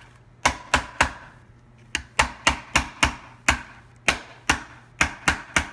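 Plastic hoverboard shell being tapped into place with the butt of a screwdriver: quick sharp taps in short runs of three to six, with a short pause about a second in, seating the shell flush.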